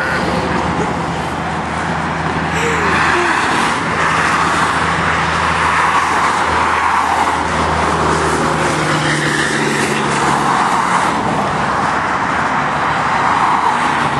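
Roadside traffic noise: vehicles driving past, with a steady engine hum that fades out about ten seconds in.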